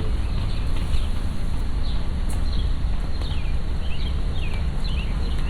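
A steady low rumble, with short high chirps falling in pitch repeating several times through it.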